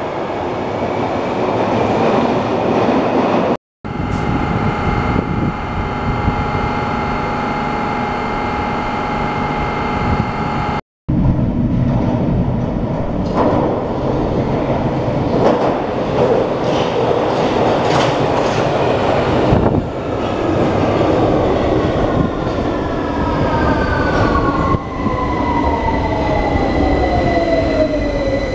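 London Underground 2009 Tube Stock trains in a deep-level tube station: a continuous rumble of trains running, broken twice by brief cuts in the sound. Over the last several seconds an arriving train runs into the platform with its whine falling steadily in pitch as it brakes.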